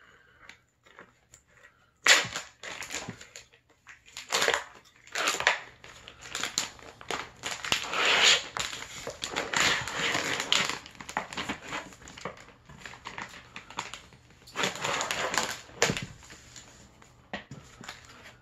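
Plastic film lid being peeled off a sealed plastic food tray, the stiff plastic crackling and crinkling in irregular bursts that start about two seconds in.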